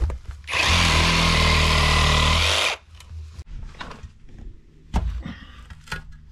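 Cordless power saw running for about two seconds as it cuts through a tree root in the soil. Then a shovel blade chops and scrapes into the dirt, with several short knocks.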